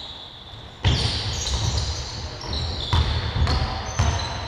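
Basketball bouncing on a hardwood court, with a sharp bounce about a second in and a few more near the end, among short high sneaker squeaks from players moving on the floor.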